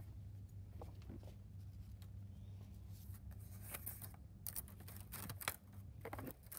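Faint rustling and light clicks as a cut construction-paper sculpture is handled and lifted, over a low steady hum. The rustles come mostly in the second half.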